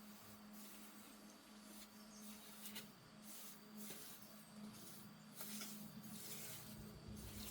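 Near silence: faint background hiss with a steady low hum and a few soft ticks.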